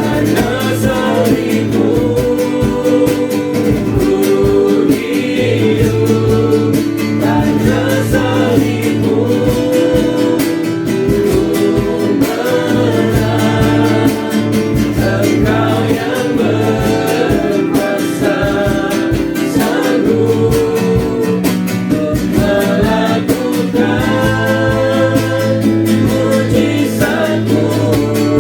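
A worship song: voices singing a melody over strummed guitar and a steady bass line.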